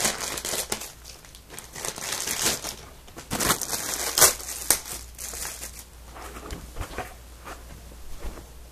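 Irregular crinkling and rustling with sharp clicks as AV and component cables are handled; busiest in the first five seconds, fainter and sparser after.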